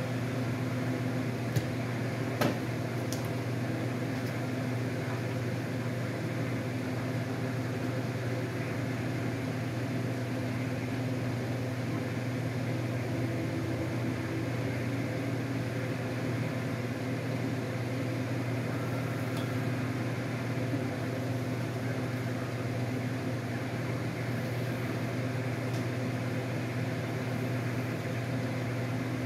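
A steady machine hum, like a motor or fan running, with two sharp clicks about two seconds in.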